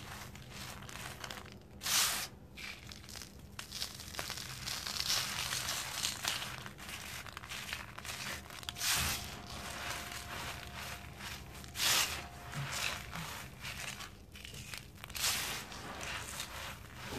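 A dried sand-and-cement chunk being crushed and crumbled by hand: continuous gritty crunching and crackling as it breaks into powder, with four louder crunches spread through.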